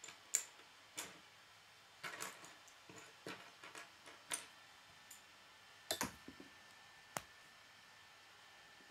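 Hard plastic K'nex rods and connectors clicking as they are handled and snapped together: about a dozen sharp clicks at irregular intervals, stopping a little after seven seconds in.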